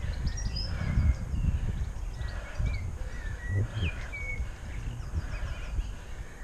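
Wind buffeting the microphone of a camera on a moving bicycle, a low, rising and falling rush, with small songbirds whistling short gliding notes and chirps above it throughout.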